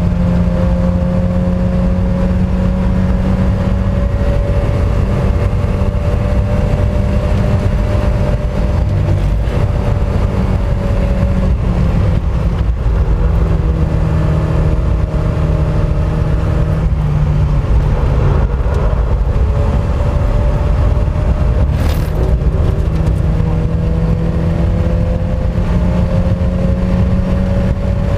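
Mk1 Mazda MX-5's four-cylinder engine running under load at track pace, its note climbing and dropping as it is driven through gears and corners, over steady wind and road noise.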